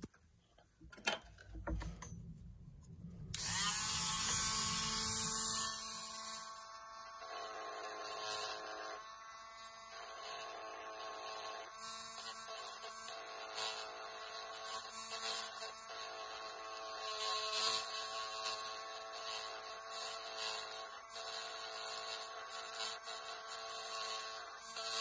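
Small handheld rotary tool switched on about three seconds in, spinning up to a steady high-pitched whine. It grinds down the metal edge of a lens-mount adapter to take off excess height and black paint. The grinding sound shifts a little as the bit is pressed on and eased off the work. A few light handling clicks come before it starts.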